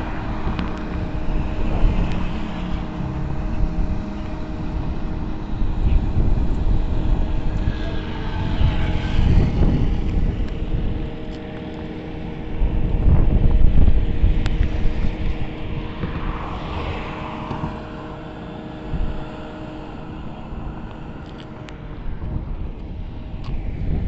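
Outdoor traffic sound: vehicles go by a few times over a steady engine hum, with wind rumbling on the microphone. The hum stops about four seconds before the end.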